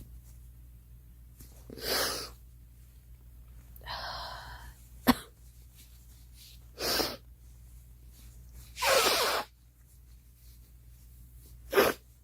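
A girl sneezing repeatedly, about five sneezes two to three seconds apart.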